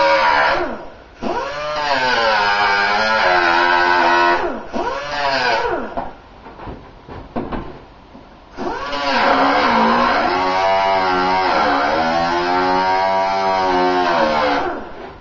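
Hand-held electric grinder running and grinding metal, its motor pitch sagging and rising as it is pressed on and eased off. It stops briefly about a second in and for about three seconds in the middle, where only a few clicks and knocks are heard.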